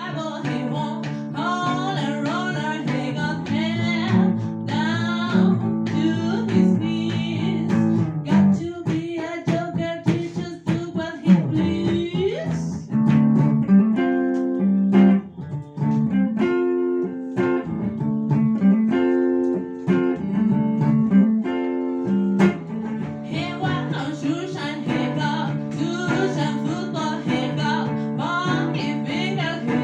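Guitar music, the strings struck in a regular rhythm, with the playing changing partway through.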